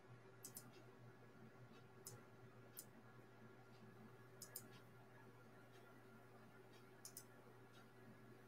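Near silence: room tone with a steady faint hum, broken by a few faint sharp clicks, several of them in quick pairs.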